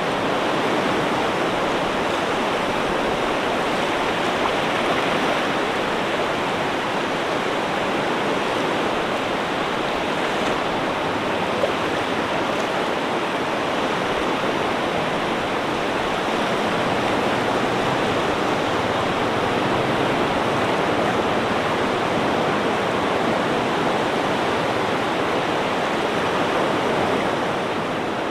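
Ocean surf making a steady, unbroken rush of water, with no distinct swells or separate breaking waves.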